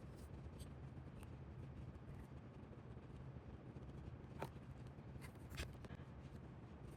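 A few light clicks and scrapes of small tools and die-cast car parts being handled, over a steady low hum.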